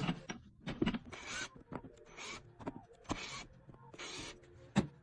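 Short rough scraping strokes, about one a second, with a few sharp knocks between them, from hand work on an old leather boot.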